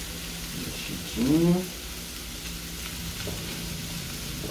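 A spoon stirs rice and beans with cubes of queijo coalho in a steaming steel pot, and the mixture sizzles. About a second in comes a brief rising tone, the loudest sound.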